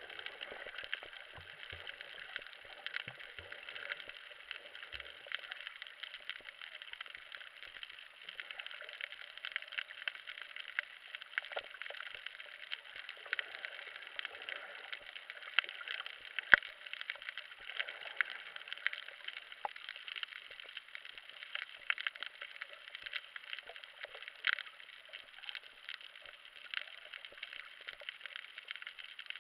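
Underwater reef sound picked up by a submerged camera: a steady, dense crackle of many tiny clicks, with one sharp, louder click about sixteen seconds in.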